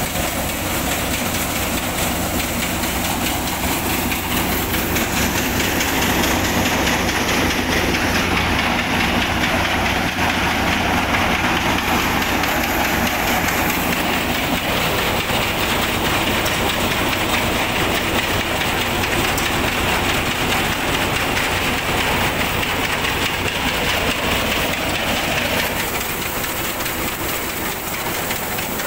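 Paddy thresher running under load as rice sheaves are fed into its drum. It makes a loud, steady mechanical din over a constant low hum.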